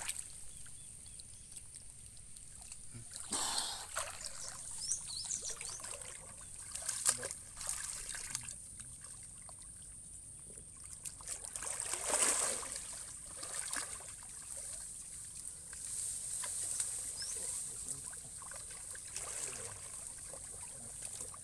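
Shallow muddy water splashing, sloshing and trickling in scattered bursts as bare hands grope through it for fish, the biggest splash about twelve seconds in. A steady high hiss runs underneath.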